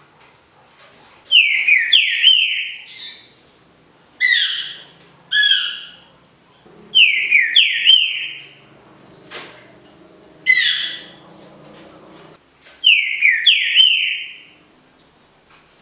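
Caged green-winged saltator (trinca-ferro) singing its smooth 'canto liso Paraná' song. It gives six loud whistled phrases of quick down-slurred notes, with pauses of about a second between them.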